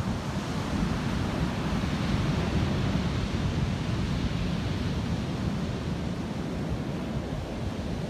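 Pacific Ocean surf breaking and washing onto a sandy beach, a steady hiss of waves, with wind on the microphone adding an uneven low rumble.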